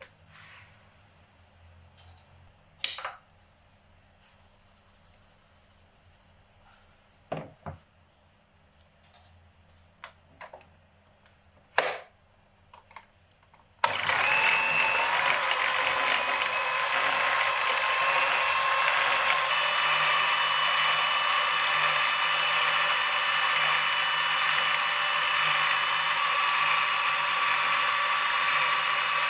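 A few scattered clicks and knocks, then about halfway through a Philips electric stand mixer switches on and runs steadily, its motor whining and its beaters churning butter in the bowl.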